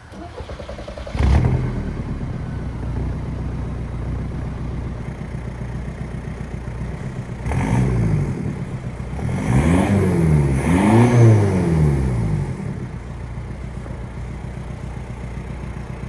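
Car engine catching with a sudden loud burst about a second in, then idling steadily, and revved up and back down about three times before settling back to idle.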